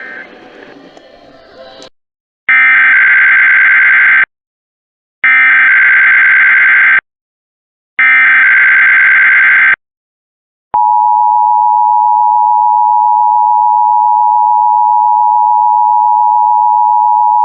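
Emergency Alert System test: three harsh digital screeching bursts of SAME header data, each nearly two seconds long with short silences between. About eleven seconds in, the steady two-tone EAS attention signal begins: a loud, even dual tone near 1 kHz.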